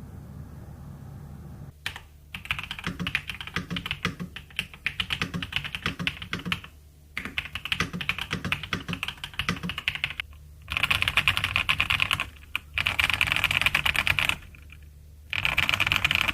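Typing on an RK S98 wireless mechanical keyboard: rapid key clicks in several runs with brief pauses between them, starting about two seconds in. The later runs are faster and louder.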